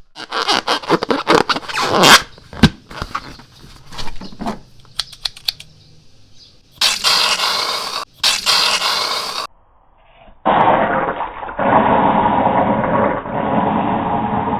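Slime being handled, with a dense run of sticky crackling and squelching clicks for about the first five seconds. About seven seconds in come two hissing bursts, a spray can being sprayed. After a short pause a steady, muffled squishing texture runs on.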